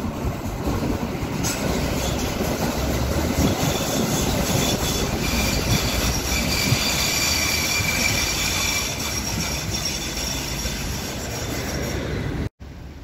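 Dortmund Stadtbahn light-rail car running along the track below, a steady rumble and hiss of wheels on rails. For several seconds in the middle, the wheels give a high squeal.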